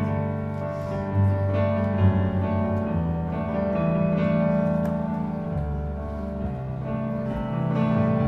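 Piano playing the slow instrumental introduction to a musical-theatre song: sustained chords over a bass line that shifts a few times.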